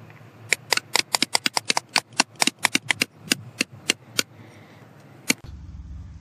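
Small hand hammer tapping at rock, chipping it away at a fossil dig: a quick, uneven run of about two dozen sharp taps over some four seconds, then one last tap a second later.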